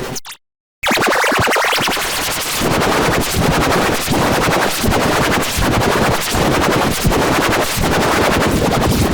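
Sparta-style remix of a logo sound effect: loud, distorted electronic music chopped into a fast, machine-gun-like stutter. It cuts out briefly about half a second in, then starts again and keeps stuttering.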